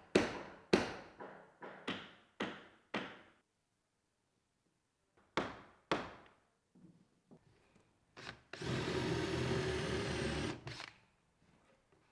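A hammer striking wooden deck planking, six blows at about two a second, then two more blows a few seconds later. Near the end a cordless drill runs for about two seconds.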